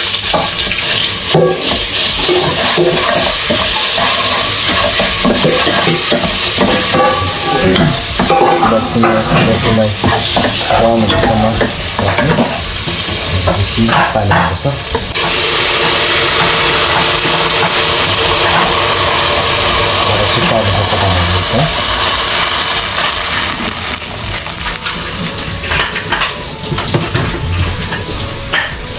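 Food sizzling and frying in a steel pot, with a metal ladle stirring and scraping against the pot's sides.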